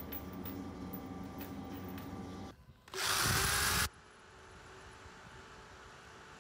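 Drill press bit cutting into a steel knife tang: one loud burst of just under a second, with a tone that falls as the bit bites. Before it, a steady low hum with faint clicks as metal pins are handled.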